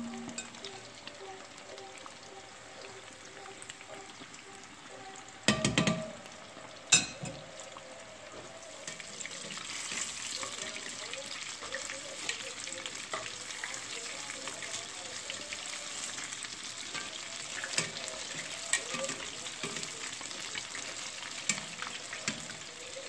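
Breaded fish fillets deep-frying in hot oil in a cast iron pot: a steady sizzle and crackle that grows louder about nine seconds in. A few sharp knocks come about six and seven seconds in.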